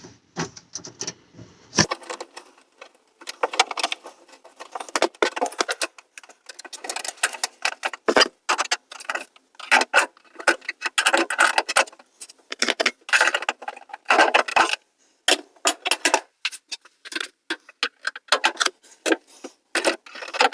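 Irregular metallic clicks, scrapes and rattles of needle-nose pliers working a ground wire into a loop and fastening it under the range hood's ground screw.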